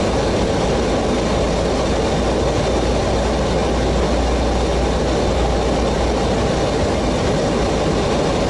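Steady noise of airflow and engines heard inside an airliner's flight deck in flight, with a deep rumble that swells for a few seconds in the middle.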